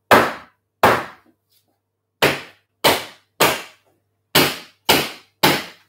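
Batter-filled cake tins being rapped down on a table, eight sharp knocks in groups of two, three and three, about half a second apart within each group. The tapping settles the batter and knocks out air bubbles so the baked sponges have no holes.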